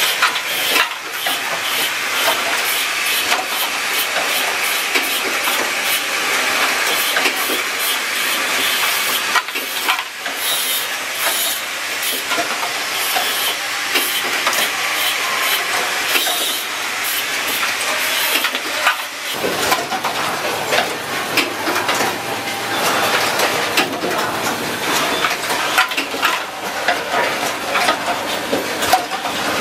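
Automatic switch assembly machine running: a dense, irregular clatter of clicks and rattles from the moving mechanisms and parts, over a steady hiss. A low hum comes in about two-thirds of the way through.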